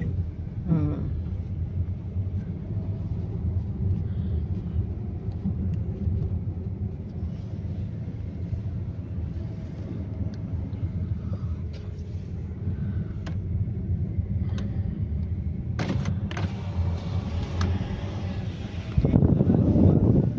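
Car driving slowly on a village road, heard from inside the cabin: a steady low rumble of engine and tyres with a few small knocks. About nineteen seconds in it suddenly grows louder and fuller.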